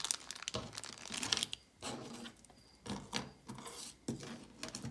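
Necklaces and earrings clicking and rattling against each other as they are handled, a run of small sharp clicks with short pauses.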